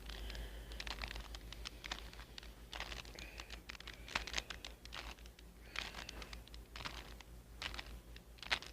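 Plastic 2x2 Rubik's cube being twisted by hand: quick, irregular clicks and rattles of the layers turning, several a second.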